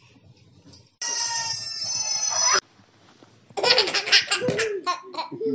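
A baby laughing: a held high-pitched squeal that cuts off suddenly partway through, then bursts of belly laughter near the end.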